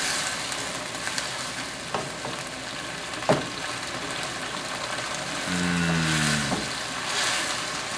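Mixed vegetables sizzling in a hot wok in a cornstarch-thickened white sauce while being stirred with a wooden spatula, which knocks against the pan twice. A short low hum comes about two-thirds of the way through.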